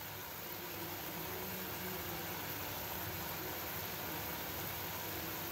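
Steady low hiss of onion, tomato and capsicum cooking in a yogurt and spice gravy in a kadhai.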